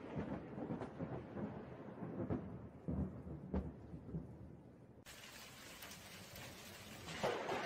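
Thunder rumbling after a lightning strike, broken by several sharper cracks. About five seconds in, a steady hiss of rain comes in, and another louder rumble swells near the end.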